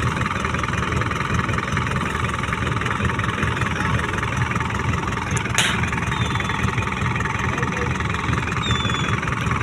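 Fishing boat's engine running steadily, with one sharp knock a little over halfway through.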